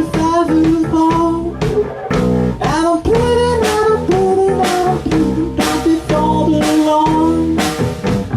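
Rock band music: drum kit, guitar and bass under a held, sliding melody line that sounds like singing.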